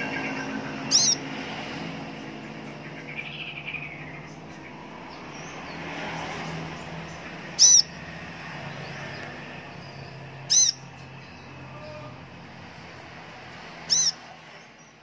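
A male Van Hasselt's sunbird (kolibri ninja) gives four short, sharp, high calls, spaced several seconds apart, over a steady low hum in the background.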